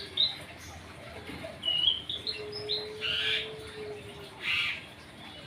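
Long-tailed shrike singing: short whistled chirps and two harsh, scratchy calls, about three and four and a half seconds in.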